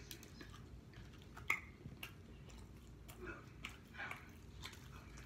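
A person chewing pepperoni pizza close to the microphone, with scattered wet mouth clicks; one sharp click about a second and a half in is the loudest.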